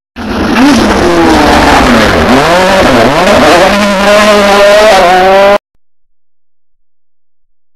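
Rally car engine at high revs, its pitch falling and rising again several times as it brakes, shifts gears and accelerates through the stage. It is loud, then cuts off suddenly about five and a half seconds in.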